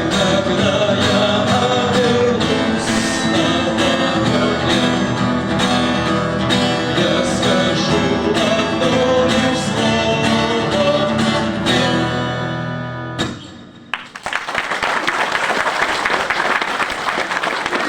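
Live band playing a song on guitars, with a strummed rhythm, ending about 13 seconds in and dying away; a second later the audience breaks into steady applause.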